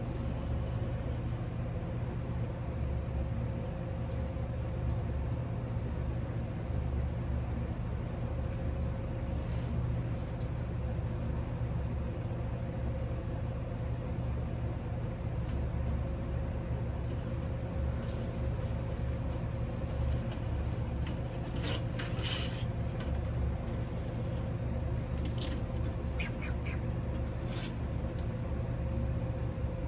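A steady low hum, with a few short scratching clicks, clustered near the middle and toward the end, from a large monitor lizard's claws gripping the bark of a tree stump as it climbs.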